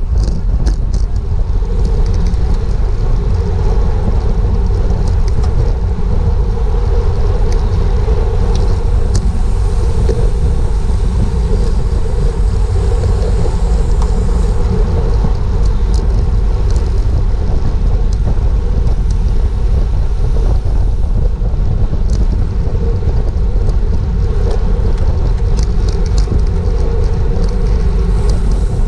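Wind rushing over a GoPro microphone on a racing bicycle at speed: a loud, steady low rumble with a steady hum above it and scattered faint ticks.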